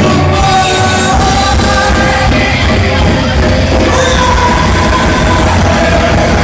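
Live rock band playing loud: electric guitars and drum kit with a voice singing over them, heard from among the audience.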